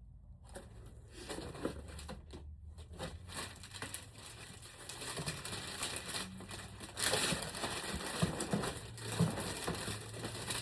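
Packaging crinkling and rustling as items are handled and unwrapped, louder from about seven seconds in.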